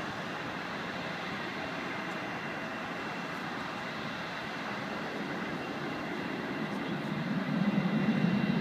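Distant airliner's jet engines running with a steady high whine over a hiss, a deeper rumble swelling louder about seven seconds in as thrust comes up for the takeoff roll.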